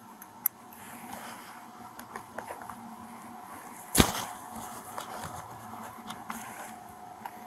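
Handling noise on a body-worn camera pressed against clothing: rustling with scattered small clicks and taps, and one sharp loud knock about four seconds in as the camera is bumped.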